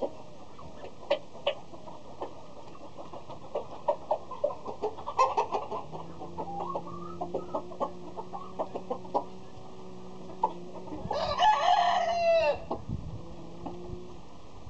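A rooster crows once, loudly, about three-quarters of the way through, the call falling in pitch at its end. Scattered short clucks come before it, and a faint steady low hum runs under the second half.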